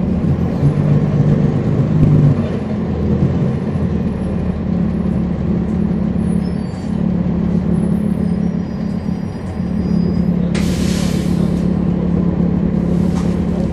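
The Cummins ISL9 straight-six diesel of a NABI 40-foot transit bus running steadily, heard from the rear of the cabin. A sharp hiss of air from the bus's air brakes, about a second long, comes about ten seconds in, and a shorter hiss follows near the end.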